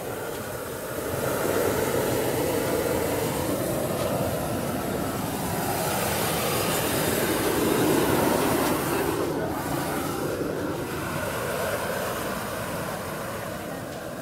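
Flame burning at the mouth of a large paper hot-air balloon, a steady rushing roar as it fills the envelope with hot air. It swells about a second in and eases off gradually after about nine seconds.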